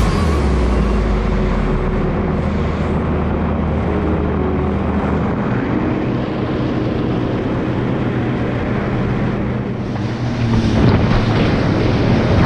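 Jet ski engine running steadily at cruising speed, with wind rushing over the microphone. About ten seconds in, the wind and water noise grows louder.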